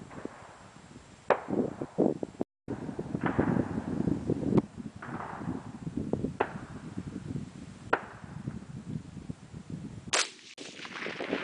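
A single .223 shot from a Bushmaster XM-15 AR-15 rifle, a sharp crack, among several smaller clicks and knocks, with wind on the microphone.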